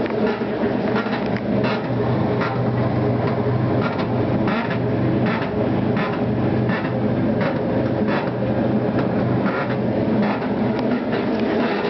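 Maytag Atlantis top-load washer running, with a steady motor hum and repeated clicking knocks every half second to a second. This is the unexplained noise that stayed after the gearbox was replaced.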